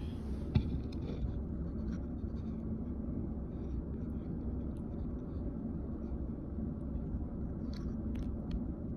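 Steady low background rumble, with one sharp knock about half a second in and a few faint clicks near the end.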